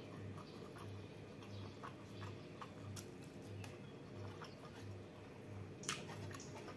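Close-miked chewing and wet mouth sounds of a mouthful of rice and prawns, with small squishy clicks as fingers gather sticky rice from the plate; one sharper click near six seconds in. A faint low hum pulses underneath.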